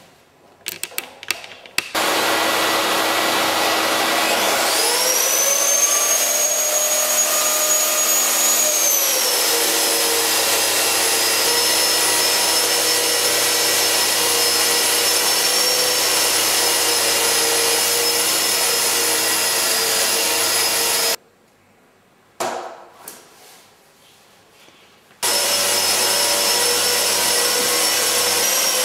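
Eibenstock ETS 225 drywall sander running with its dust extractor. A loud steady rush of suction starts about two seconds in, then the sander motor spins up with a rising whine and runs on steadily, its pitch dipping slightly as the pad works against the plasterboard wall. The sound breaks off abruptly for a few quieter seconds with a couple of knocks, then the suction and sanding resume.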